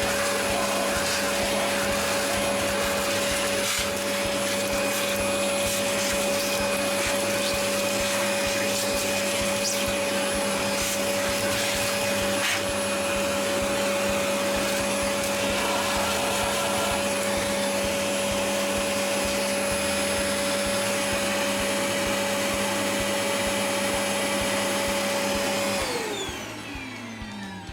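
Vacuum cleaner running steadily with a constant motor whine. Near the end it is switched off, and its motor winds down with a falling pitch.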